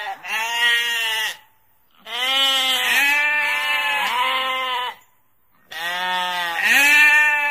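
Sheep bleating: several long, wavering bleats in three bursts, with about a second of silence between them.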